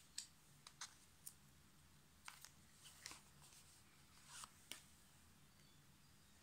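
Quiet handling of tarot cards: a scattering of faint, sharp clicks and light taps as cards are drawn from the deck and laid down on a lace-covered wooden table.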